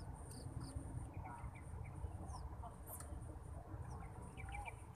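Outdoor ambience: a steady low rumble with scattered short, high bird chirps, a few of them in quick little clusters.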